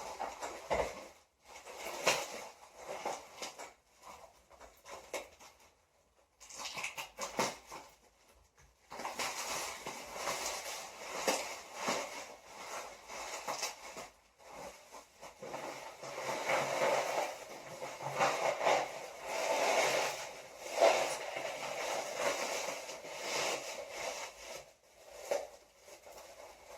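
Packing material being handled and torn open to unwrap a planter: a few scattered knocks and handling sounds, then from about nine seconds in a long stretch of continuous crinkling and rustling with many small crackles.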